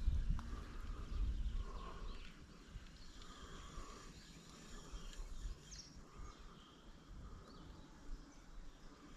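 Faint outdoor ambience: distant birds chirping in short scattered calls over a low rumble that fades during the first couple of seconds.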